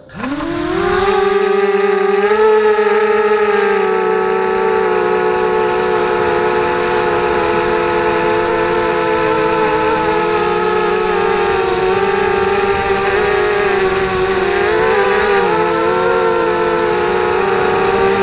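ZMR-250 FPV quadcopter's brushless motors and propellers, heard from the camera mounted on it. The motors spin up with a rising whine as it lifts off, then run with a loud, steady buzzing whine whose pitch wavers with throttle changes about three-quarters of the way through and again at the end.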